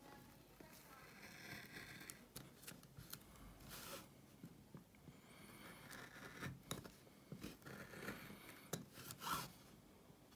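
A small carving gouge cutting into wood by hand: quiet, short slicing and scraping strokes one after another, with an occasional click, as chips are pared out around a low-relief design.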